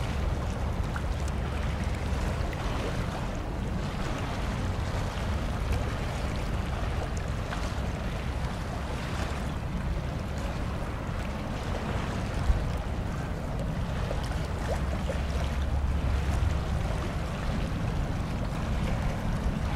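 Wind buffeting the microphone over choppy sea, a steady low rumble with the wash of waves. There is one short knock about two-thirds of the way through.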